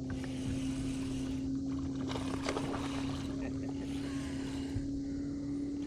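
A boat motor running with a steady hum.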